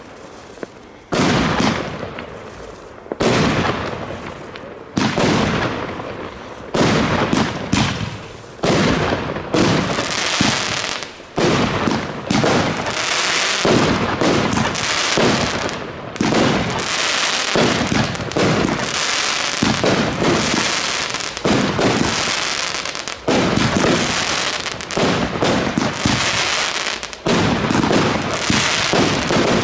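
Consumer fireworks batteries firing shot after shot: a Blackboxx Barbarossa battery, joined about halfway by a Blackboxx Roter Drache battery. The shots come every second or two at first, then follow closely and overlap.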